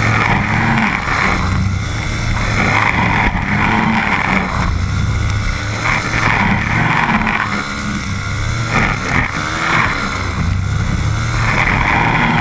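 Stihl FS 130 brush cutter's 4-MIX engine running at high throttle, heard close up from the operator's chest. The engine note swells and eases every few seconds as the trimmer line cuts through tall grass.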